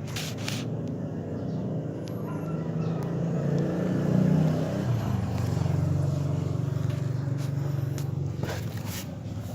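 A motor vehicle's engine running, a low drone that grows louder to a peak about four seconds in and then slowly fades, as of a vehicle passing close by.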